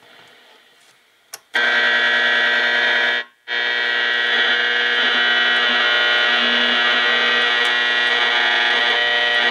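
DYN DS-4547 flip clock radio's alarm buzzer sounding a loud, steady electric buzz. It comes on with a click about a second and a half in and cuts out for a moment near the three-second mark before buzzing on.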